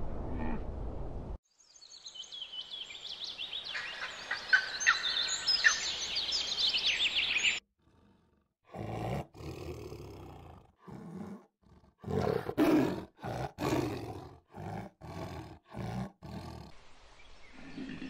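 Birds chirping and singing, a busy mix of short high calls lasting about six seconds. After a brief gap, a tiger growls in a run of about a dozen short bursts.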